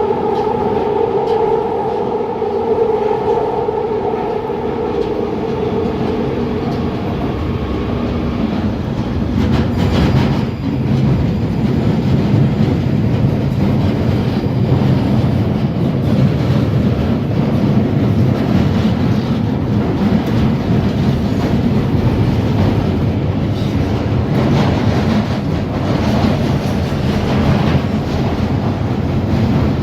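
London Underground Northern line train running at speed through a deep-level tunnel: a steady, loud rumble of wheels on rail, with a pitched motor whine that fades away over the first several seconds and a brief knock about ten seconds in.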